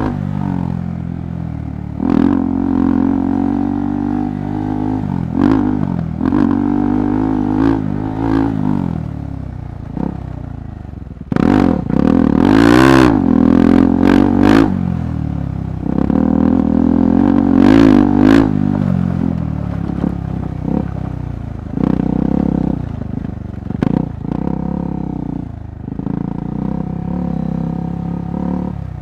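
KTM 390 Adventure Rally's single-cylinder engine revving up and easing off again and again as it is ridden over a rough trail, with frequent knocks and rattles. About halfway through the engine revs higher, under a loud rushing noise, for a few seconds.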